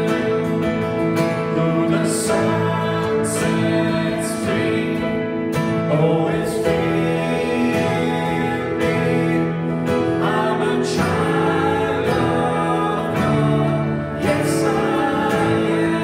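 Church worship song: singing with guitar accompaniment.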